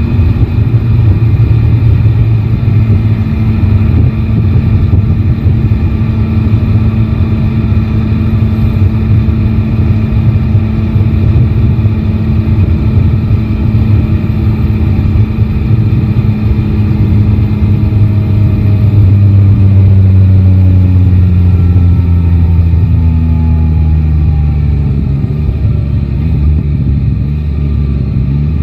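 Motorcycle engine running steadily under way with a dense low rumble, then its pitch falls steadily over the last ten seconds or so as the bike slows down.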